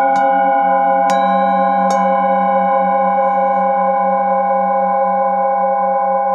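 Metal singing bowls struck with a mallet three times in the first two seconds, then their several overlapping tones ringing on and slowly fading, with a low tone pulsing underneath.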